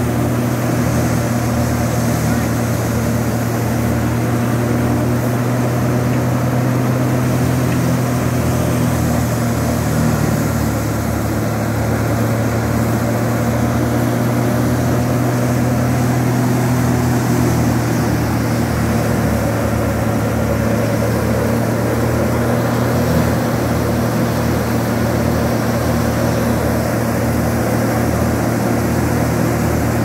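Tractor-driven wheat thresher running steadily while wheat sheaves are fed into it: a continuous, even mechanical drone with a constant low hum.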